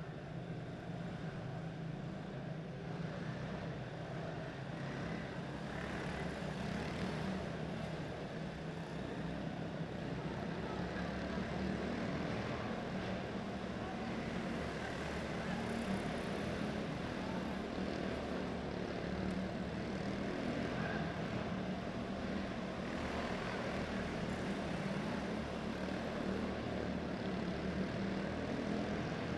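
Quarter midget race cars' small single-cylinder engines buzzing steadily together as the cars lap a dirt oval, a little louder after the first ten seconds.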